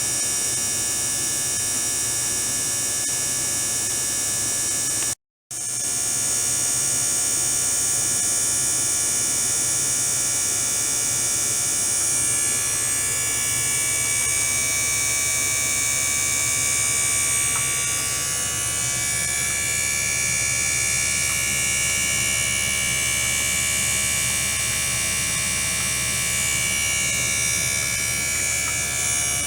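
Ultrasonic tank apparatus with a small circulation pump running: a steady electrical hum laced with many high, thin tones. In the second half some of the tones drift slowly up and down in pitch. The sound cuts out completely for an instant about five seconds in.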